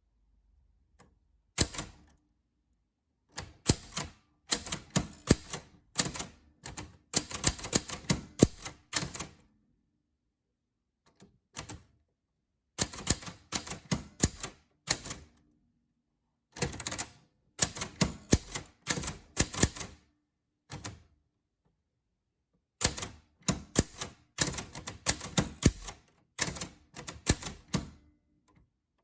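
Typewriter keys striking in quick runs of clacks, with pauses of a second or two between runs.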